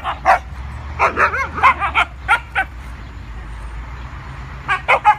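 Several Siberian huskies play-fighting, giving short yips, barks and whining calls that rise and fall in pitch. The calls come in a quick cluster in the first half, pause, then return briefly near the end.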